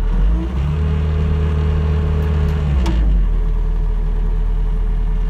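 Bobcat skid-steer loader's engine running under high-flow hydraulic load as the SGX60 stump grinder's 27-inch cutter wheel spins up in the air. A louder steady drone from about one to three seconds in, then the engine settles back to a steady run.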